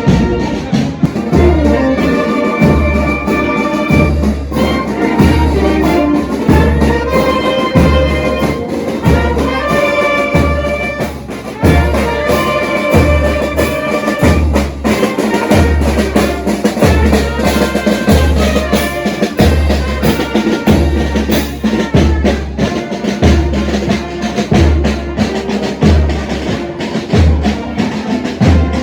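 Brass band playing, with trumpets and trombones carrying the tune over a steady bass drum beat.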